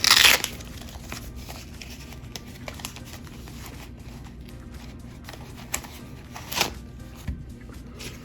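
Tools being handled and rummaged through on a workbench: a loud rustle and clatter at the start, then scattered light clicks and a couple of sharper clinks later on.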